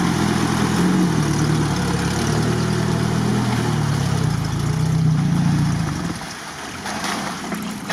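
UAZ off-roader's engine running at low revs as the vehicle crawls through mud, the note swelling a little and then fading about six seconds in as it pulls away.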